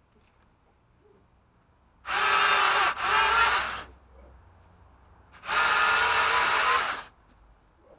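Pole saw motor running in three short bursts as the trigger is pulled and released, a steady whine that dips slightly in pitch during each run.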